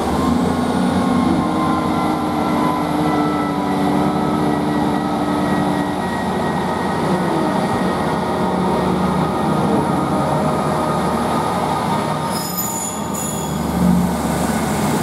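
Coupled Class 158 and Class 159 diesel multiple units pulling out and passing close by. The engines run under power with a steady hum of tones over the rumble of wheels on rail, and there is a faint high whistle. A brief high-pitched squeal comes near the end.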